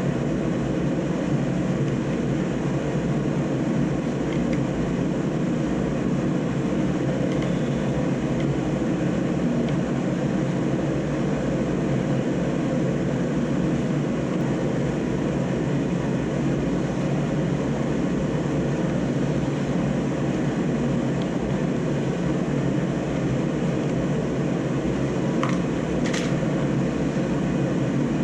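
Steady, even rush of a workshop heater's fan running, with two faint clicks a little before the end.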